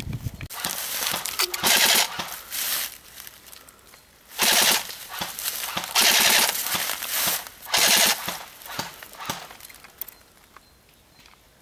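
Airsoft gun firing on full auto: about five rapid bursts, each up to a second and a half long, with short pauses between them.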